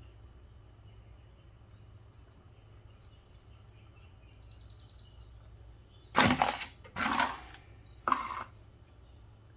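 Three sharp metallic clacks, about a second apart, in the second half: brake pads being knocked and seated into a car's front brake caliper bracket. Under them is a steady low hum and a faint bird chirp.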